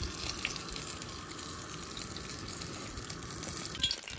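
Egg rolls deep-frying in hot oil in a cast iron skillet, a steady sizzling.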